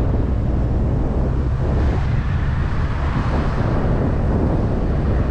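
Steady low rumble of wind buffeting the microphone, mixed with the running and road noise of a moving vehicle.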